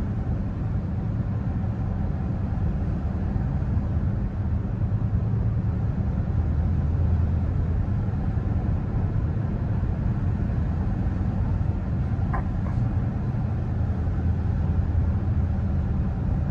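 Steady low road and drivetrain rumble heard inside the cabin of a Ford cruising at about 50 mph. A brief faint squeak comes about twelve seconds in.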